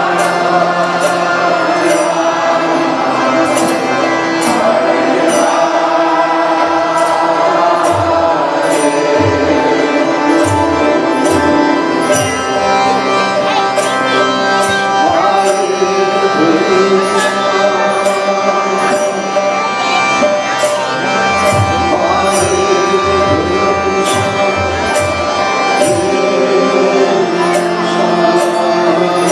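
Kirtan: a lead singer and group chanting to a harmonium's sustained chords, with a barrel drum and hand cymbals keeping a steady beat.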